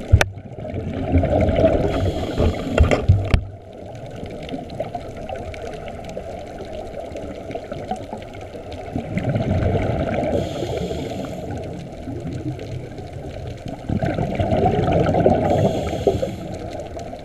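Scuba regulator breathing heard underwater: exhaled air bubbles out in three long gurgling, rumbling surges, and a short hiss comes with each inhalation.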